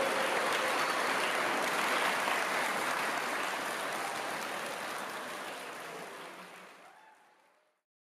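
Large audience applauding in a concert hall, the clapping steady at first, then fading away from about five seconds in until it is gone just before the end.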